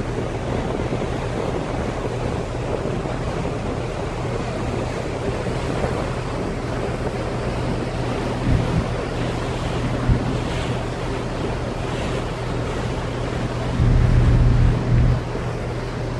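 Steady rush of wind and water heard from the deck of a moving cargo ship, with a constant low hum from the ship's machinery. Wind buffets the microphone in loud gusts near the end.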